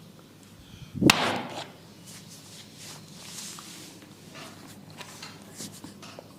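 A barber's hands at work in an oil head massage: one loud, sharp smack about a second in, then soft scattered handling sounds of hands on hair and skin.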